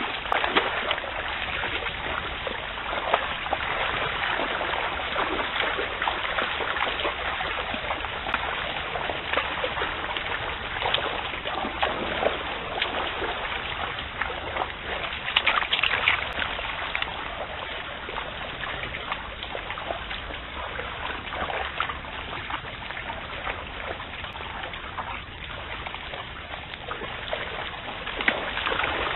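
Red deer wading in a swollen stream: water splashing and sloshing around their legs over the steady sound of running water, with a louder run of splashes about halfway through.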